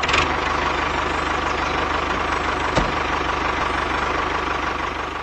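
Tractor engine running steadily with an even, fast pulse, beginning to fade just at the end.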